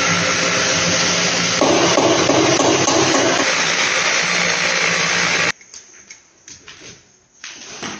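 Loud, steady rushing noise with a faint low hum in it, cutting off suddenly about five and a half seconds in. Light clicks and taps follow, from hands handling parts on the door motor.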